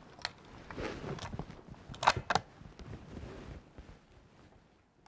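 Handling noise and a few sharp mechanical clicks, two close together about two seconds in, as a shooter puts on hearing protection and readies a slug shotgun to fire.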